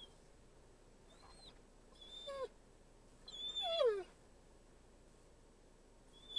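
An animal whimpering: a few short whines that slide down in pitch, the longest and loudest about three and a half seconds in, over a faint steady background hum.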